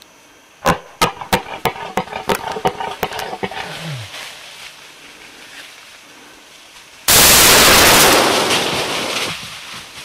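Hunting rifle shot at about seven seconds: one very loud report that echoes and dies away over two to three seconds. Before it, a quick run of short sharp sounds, about four a second, for the first three seconds.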